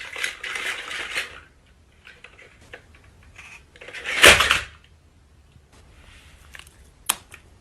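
Clatter of cutlery and dishes: scrapes and light clicks, with one louder noisy scrape about four seconds in and a sharp click near the end.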